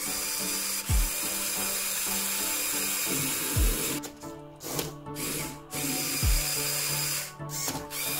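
Background electronic music with a deep falling bass note every few seconds, over a steady whir of a small electric motor driving the plastic gears of a Lego Technic walking mechanism.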